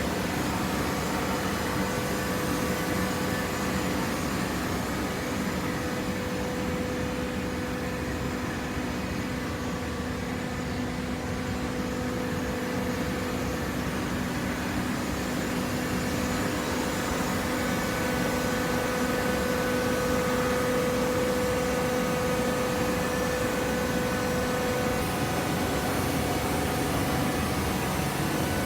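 Industrial hydraulic baler running: the steady hum and whine of its motor-driven hydraulic pump, a little louder in the second half.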